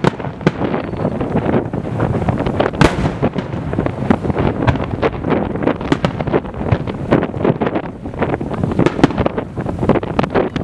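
Aerial firework shells bursting in rapid, overlapping succession: a continuous rumble thick with sharp bangs and crackles, with wind buffeting the microphone.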